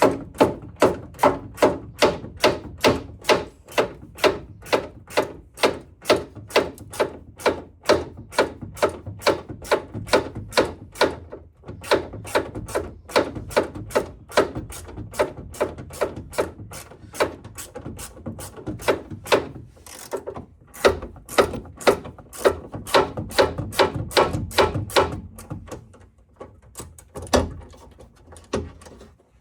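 Hand ratchet clicking steadily, about three clicks a second, as a screw is worked loose. The clicking breaks off briefly about eleven seconds in and thins out near the end.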